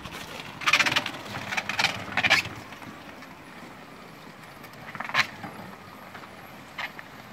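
Homemade tracked wheelchair crawling over snow: a steady low running sound from its drive and tracks, with loud crunches of snow in the first two and a half seconds and fainter ones about five and seven seconds in.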